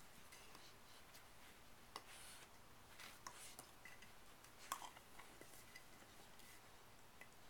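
A three-month-old pitbull puppy gnawing a chew bone: faint, scattered clicks and scrapes of teeth on the hard bone, with a sharper click a little past halfway.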